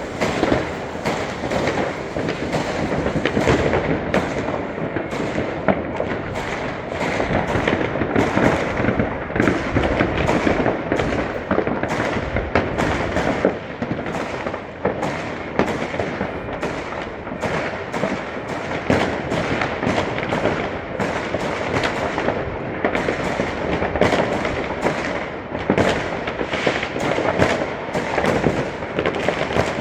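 Fireworks and firecrackers going off in a continuous barrage: many sharp bangs every second over an unbroken crackle, with no pause.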